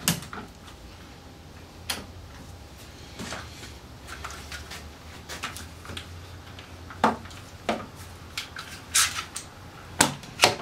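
Metal clamps clinking and knocking against the workbench and the glued-up pine blocks as they are set and screwed tight. There is a sharp knock every second or two over a faint low hum.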